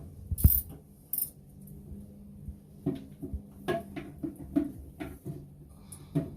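A thump about half a second in, then a run of light metallic clinks and knocks as tools and toilet-seat mounting hardware are handled while the old seat is being unbolted.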